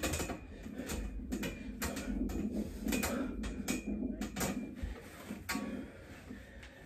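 Freestanding steel dip bars clicking and creaking irregularly as they take a man's weight through repeated dips; the clicking stops about five and a half seconds in as he steps off.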